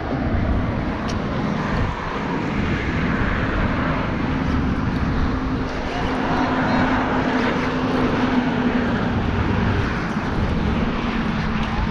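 A steady engine drone holding one pitch, over wind rumble on the microphone.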